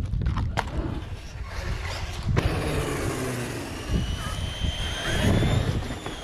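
Electric RC car running over concrete: wheels and chassis give a steady rumble, with one sharp knock about two and a half seconds in. After the knock a thin, rising motor whine can be heard as it picks up speed.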